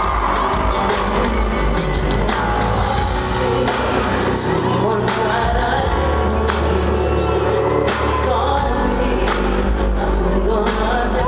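A woman singing a slow R&B ballad live with her band, over a deep, steady bass, heard from the seats of a large arena.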